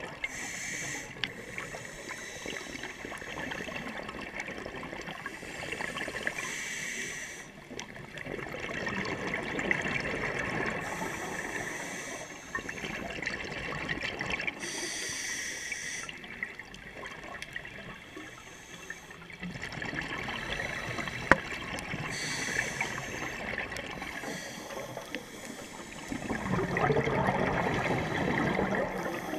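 Scuba diver's regulator breathing heard underwater: a hissing inhale every several seconds, each followed by exhaled bubbles rushing and gurgling. One sharp click stands out about two-thirds through.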